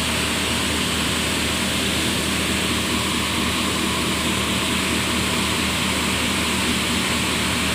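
Electric fibre-grinding machine running steadily as it churns synthetic silicone pillow fibre: a constant motor hum under a loud, even hiss.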